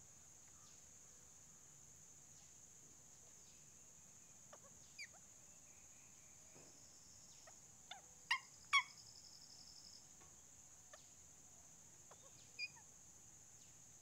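Rose-ringed parakeets giving short, sharp calls, a few scattered ones with the two loudest close together, about half a second apart, in the middle.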